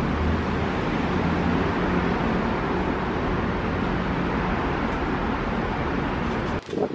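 Steady outdoor city night ambience: an even, continuous rush with a low hum, the sound of distant road traffic. It drops out briefly near the end.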